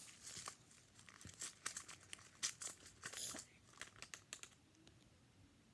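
Faint, irregular light clicks and crinkles of tiny plastic toy food pieces and their container being handled, thinning out near the end.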